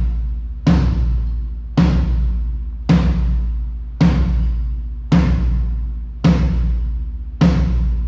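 Second tom of a drum kit struck once about every second, seven times, each hit ringing low and decaying before the next, during a drum-by-drum sound check through the PA system.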